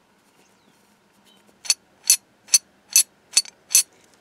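Antique brass ice box latch being worked by hand: six sharp metallic clicks of the latch mechanism, about two a second, starting a little under two seconds in.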